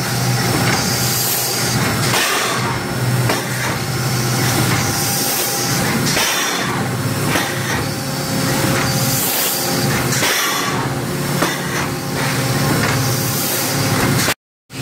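Loud, steady din of plastics-processing machinery running on a factory floor, with a low hum and scattered faint clicks. The sound cuts out briefly near the end.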